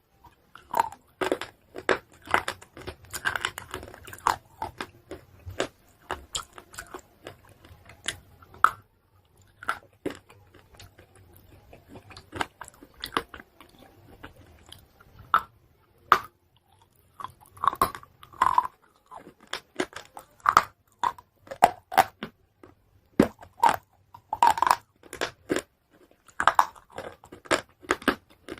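A person biting and chewing hard pieces of chalk close to the microphone: irregular crunches in clusters, sparser for a stretch in the middle.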